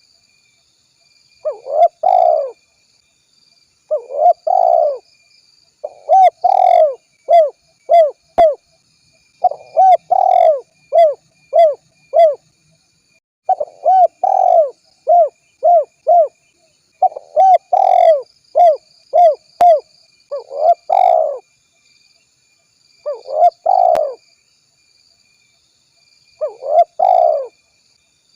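Spotted dove cooing repeatedly, each phrase a run of several short coos, with pauses of a second or two between phrases.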